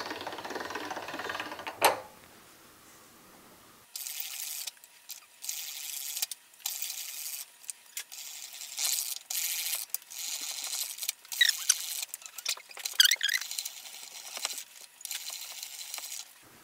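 Hand-cranked pasta machine being turned as a dough sheet goes through its fettuccine cutter: metal gears and rollers clicking and rattling. There is a sharp click about two seconds in, a short pause, then many short bursts of light metallic rattling.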